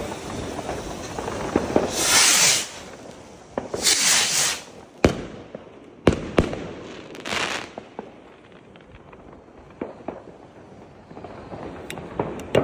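Funke/Argento 38 mm shell rockets launching one after another from a rack, three hissing whooshes, with sharp bangs of shells bursting overhead between them. Scattered short pops and crackles follow near the end.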